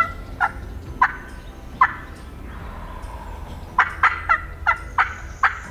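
Wild turkey calls: a few short, sharp notes spaced out, then a quicker run of about seven notes from about two-thirds of the way in.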